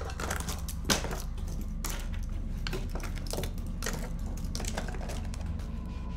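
Hurried handling of jewellery and belongings being grabbed and stuffed into a bag: a string of sharp clicks and rustles about once a second, the loudest about a second in, over a steady low drone.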